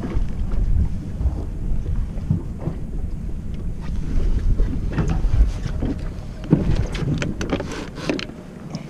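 Wind buffeting the microphone as a low, uneven rumble, with a run of sharp knocks and clatters in the second half.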